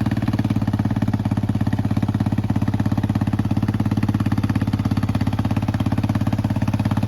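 1986 Yamaha YTM225 three-wheeler's single-cylinder four-stroke engine idling steadily with an even firing beat and no change in speed. It runs smoothly, which the buyer takes as a sign that the old engine is still healthy.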